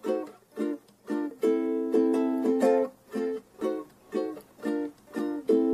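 Instrumental song intro on ukulele: short plucked chords repeating two to three times a second, with longer held chords about a second and a half in and again near the end.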